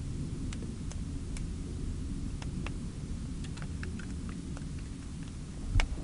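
Steady low rumble with scattered light clicks and snaps of hawthorn twigs as a porcupine shifts and feeds among the branches, and a heavier thump near the end.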